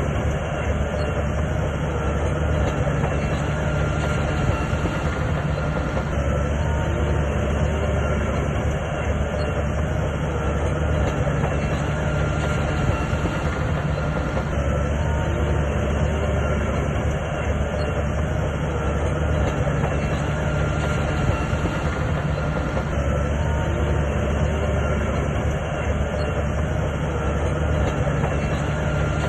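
Shantui bulldozer's diesel engine and steel tracks running steadily, a continuous heavy mechanical rumble with track clatter.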